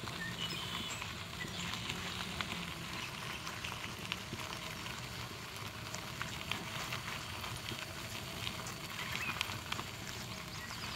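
Steady fine crackle of gravel being walked and rolled over on a path, with a few brief, faint bird chirps.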